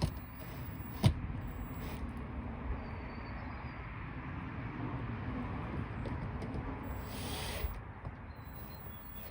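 Handling noise as a GFCI receptacle is pushed into a metal outdoor electrical box, with a sharp click about a second in and a brief scraping hiss near the end, over a steady low background.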